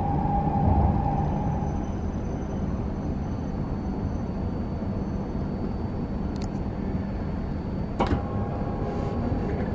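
Steady low rumble of a Tohoku Shinkansen bullet train running, heard from inside the passenger cabin. A sharp click about eight seconds in as a button on the seat's control panel is pressed, with a fainter click shortly before.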